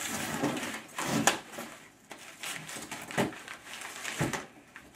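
Cardboard box rustling and scraping as a BMX bike is pulled up out of it, with a few sharp knocks of the bike against the box.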